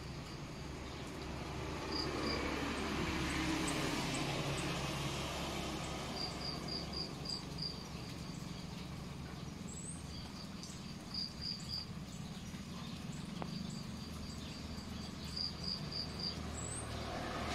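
Crickets chirping in short runs of four or five high chirps that recur every few seconds, over a steady low hum. Twice a brief, higher rising chirp cuts in, and a swell of background noise builds a few seconds in.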